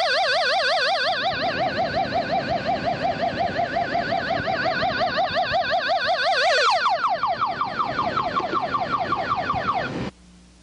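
Electronic sci-fi UFO sound effect: a rapid warbling tone with several overtones. About two-thirds of the way through it turns into quick repeated downward sweeps, then it cuts off suddenly near the end.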